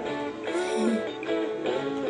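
Music playing: a quick melody of plucked, guitar-like notes.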